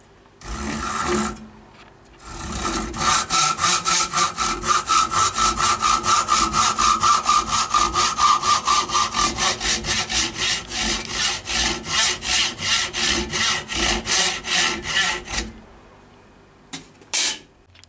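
Hand saw cutting through a wooden dowel in quick, even back-and-forth strokes, about three a second, after a brief first scrape to start the cut.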